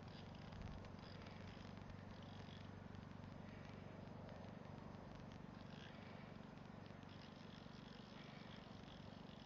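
Near silence: faint outdoor ambience with a steady low hum and a few faint high chirps.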